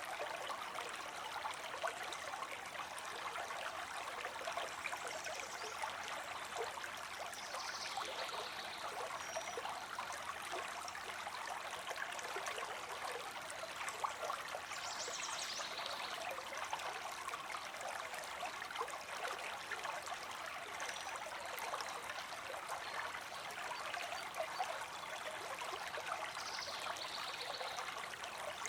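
Creek water streaming and trickling over stones, a steady, even rush.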